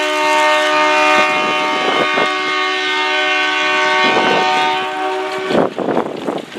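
Indian Railways diesel locomotive's air horn sounding one long, loud, steady multi-tone blast that cuts off about five and a half seconds in.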